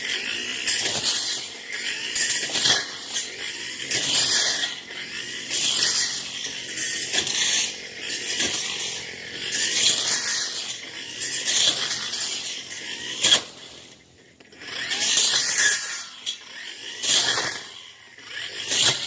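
Tanzu brush cutter cutting through dense brush, its cutting head thrashing and scraping through the vegetation in uneven surges. It eases off briefly about fourteen seconds in.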